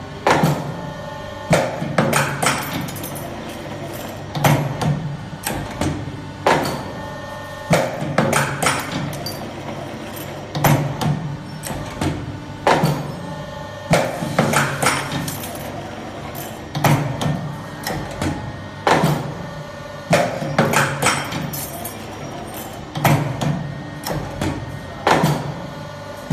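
Automatic steel wire bending and forming machine running through its cycles, with sharp metallic clacks of the bending heads every couple of seconds over a steady low machine hum, and a brief held tone between strokes.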